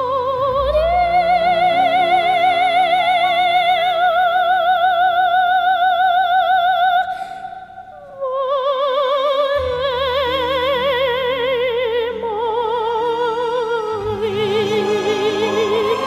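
Background music in an operatic style: a high sung voice holds long notes with wide vibrato over sustained accompaniment, pausing briefly about seven seconds in before a slowly falling phrase.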